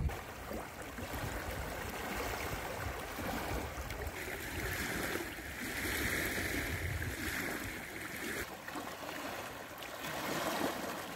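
Strong tidal current rushing and swirling over a submerged concrete slipway: steady water noise, with a brighter hiss for a few seconds in the middle.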